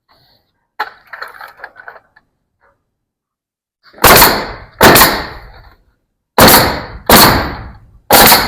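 Nail gun firing five loud, sharp shots, in pairs about a second apart, fastening the stained wood boards of the accent wall, each shot ringing out briefly. A few quieter knocks and rattles of board handling come about a second in.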